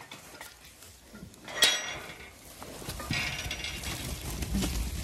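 An iron field gate is unlatched and swung open: one sharp, ringing metal clank about a second and a half in. Then a flock of Zwartbles sheep rushes through with a busy, low rumble of movement.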